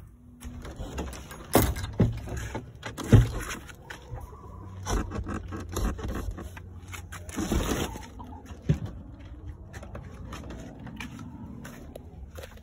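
Irregular knocks and scrapes of a weathered wooden chicken-coop door and boards being handled, with rubbing and rattling in between; the sharpest knock comes about three seconds in.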